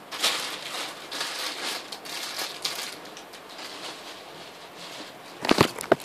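Plastic packaging crinkling and rustling as squishy toys are stuffed and pressed into a bag, with a few sharp knocks near the end.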